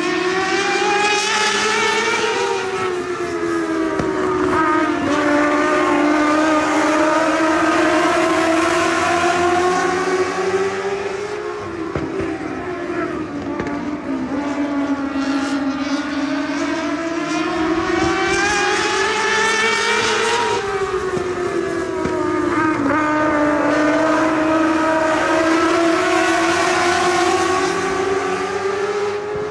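Several ModLite race cars' engines running at racing speed around a small oval. Their pitch climbs and falls in a cycle about every nine seconds as the pack accelerates down the straights and lifts into the turns.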